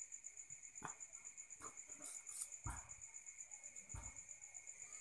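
Steady, fast, even high-pitched insect chirping, with four soft knocks from handling a peeled boiled balut egg.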